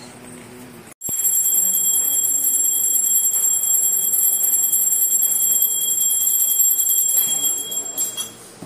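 Temple bell rung rapidly and without pause during puja, a loud, high, continuous ringing that starts suddenly about a second in and fades out near the end.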